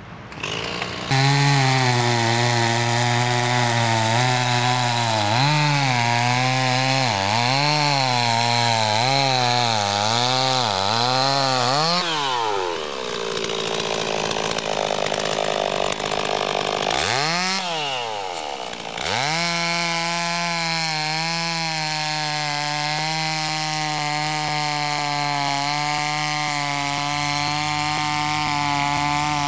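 Two-stroke chainsaw coming in loudly about a second in and revved in quick up-and-down swells, dropping off about twelve seconds in, one short rev and fall-off, then running steadily at high speed, as when cutting, for the rest of the time.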